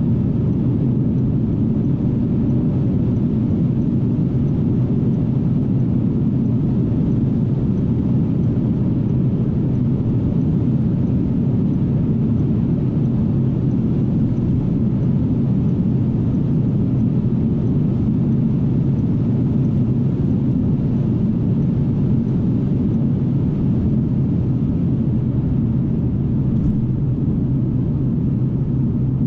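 Steady low drone inside the cabin of a Mercedes-AMG S63 Coupe held at its top speed of about 309 km/h: the 5.5-litre biturbo V8 running flat out under wind and tyre noise, with no gear changes or rises in pitch.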